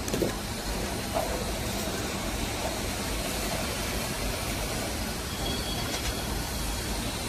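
Veneer stacker and its feed conveyor running on a veneer peeling line: a steady mechanical noise with a couple of light knocks in the first second or so.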